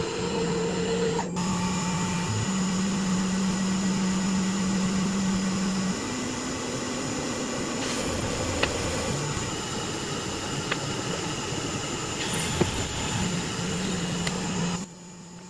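A CNC milling machine's spindle cuts into an aluminium plate with a chamfer mill and counterbore cutter, a steady machine whine with hiss. The tone shifts a few times, there are two brief sharper sounds partway through, and the sound drops away sharply near the end.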